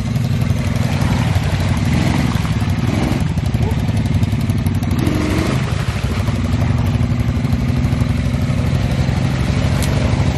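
Honda ATV's single-cylinder engine running hard under throttle as it is driven out of a deep mud hole. The revs rise and fall a few times.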